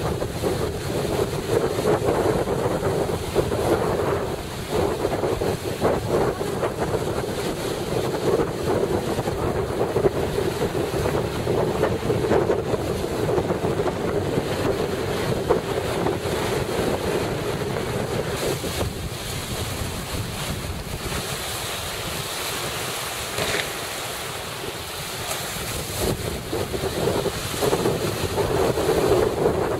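Wind buffeting the microphone over the steady rush of sea surf.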